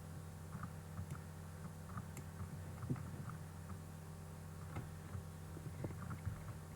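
Quiet room tone with a steady low electrical hum, with faint scattered small clicks and ticks.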